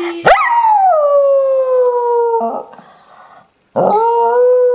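Jack Russell terrier howling in answer to a spoken call: one long howl that leaps up in pitch and then slides slowly down for about two seconds, then after a short pause a second, steadier howl held at one pitch, starting near the end.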